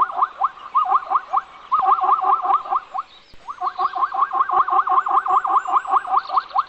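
An animal calling in a rapid run of short rising notes, about five or six a second, repeated in bouts with a brief pause about three seconds in.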